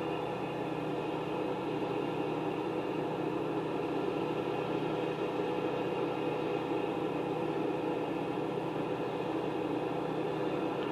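A steady mechanical hum from a running machine, even and unchanging, with a few steady tones over a smooth noise.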